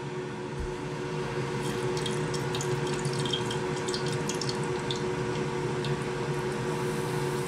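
A wheat-flour puri deep-frying in hot oil: the oil sizzles and bubbles, with scattered crackles from about a second and a half in, over a steady low hum.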